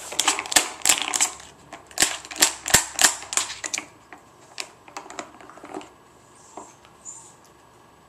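Rapid clicking and clattering of a plastic dog puzzle toy's bone-shaped pegs as a dog noses at them, dense for about four seconds, then a few scattered clicks.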